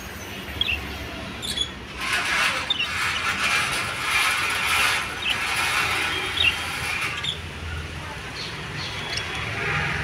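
A flock of budgerigars chattering, with many short squeaky chirps throughout; the chatter grows louder and denser from about two seconds in until about seven seconds.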